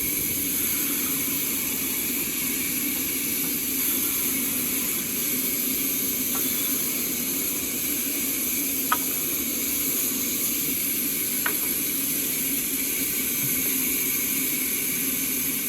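Sawmill saw running steadily through a big log, a constant machine hiss with a low hum beneath it, and a few light ticks in the middle.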